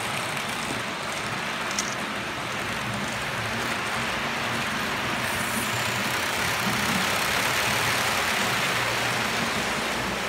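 HO-scale model train running on its track: a steady rolling rumble and motor hum. It grows louder about seven to eight seconds in as the electric locomotive and its tank wagons pass close.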